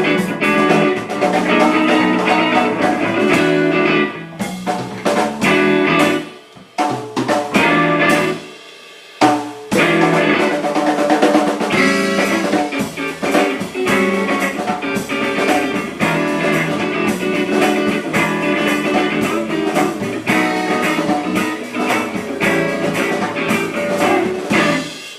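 Instrumental blues-rock passage with guitar over a drum kit and no singing. The music drops away briefly a few seconds in, then the band comes back in.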